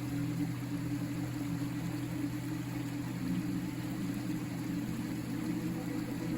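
River water flowing with a steady, unbroken rush.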